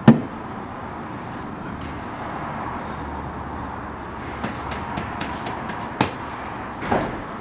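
A dull slap right at the start as dough is pressed onto the inside wall of a clay tandoor oven, then a few lighter knocks and taps over steady background noise.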